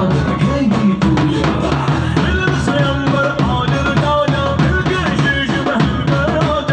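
Live band music played loud: a drum kit keeping a steady beat under a melody on electronic keyboard.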